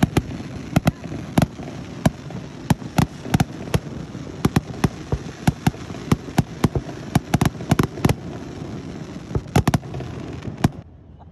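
Aerial fireworks display: a rapid, irregular series of sharp bangs and crackles over a continuous low rumble, cutting off suddenly near the end.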